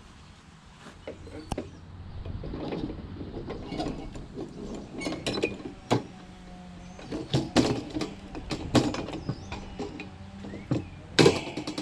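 Hand cutters snipping through the copper refrigerant lines of a mini fridge's compressor: a series of sharp metal clicks, snips and knocks, with a quick rattle near the end.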